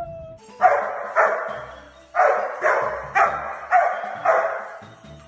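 Dog barking seven times in quick succession, each bark sharp and short.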